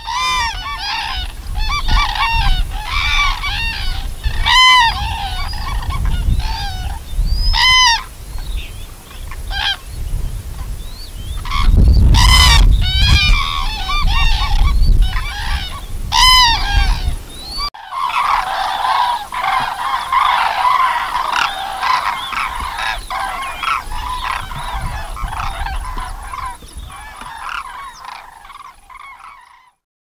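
A flock of cranes calling: many loud, arched bugling calls overlapping one another, which thicken into a dense, continuous chorus a little past halfway. A low rumble runs underneath for a few seconds in the middle.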